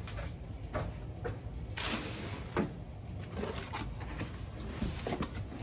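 Handling noise from a cardboard product box being opened: scattered rustles and light knocks as the flaps are folded back, with the loudest rustle about two seconds in.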